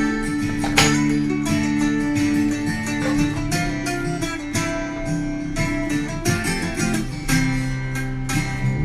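Background music led by plucked acoustic guitar, with notes picked in quick succession.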